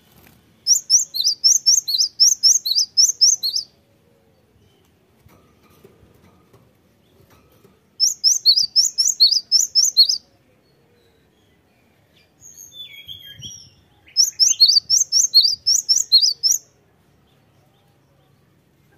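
Cinereous tit singing: three runs of rapid, sharp, high repeated notes, each lasting about three seconds, with a softer short call just before the last run.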